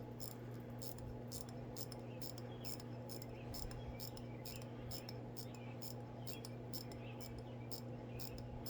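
Crown winding of a 1961 Eterna manual-wind watch: the movement's ratchet clicking softly, a few short high-pitched clicks a second, as the mainspring is wound by hand.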